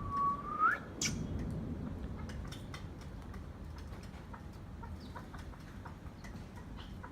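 Chukar partridge calling: one held whistled note that rises at its end, then a brief sharp upward squeak about a second in. A scatter of short faint ticks follows.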